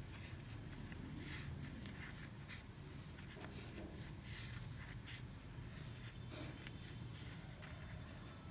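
Faint rustling and soft ticking of a metal crochet hook pulling cotton yarn through stitches, over a steady low room hum.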